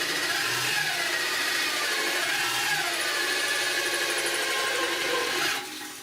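Power tool driving a wood-cutting hole cutter into steel: a loud, steady grinding screech with wavering pitch, stopping suddenly near the end. The cutter makes little headway, as it is not made for steel.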